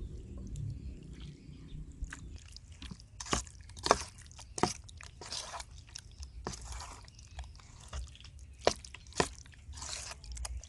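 A spatula stirring pig intestine pieces through thick tempura-and-egg batter in a metal bowl: wet, sticky squelches with scattered sharp clicks of the spatula against the bowl. There is a low hum in the first two seconds.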